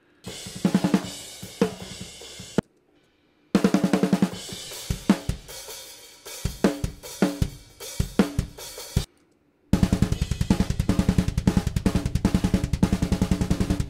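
Raw, unprocessed multitrack recording of a metal drum kit played back, mainly the snare with the overhead mics, tight and hard-hitting. Playback stops and starts again twice, and the last part is a fast, even run of hits.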